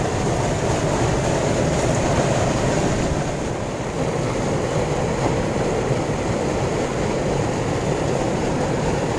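Fast water rushing steadily down a concrete irrigation canal, an even noise with no breaks.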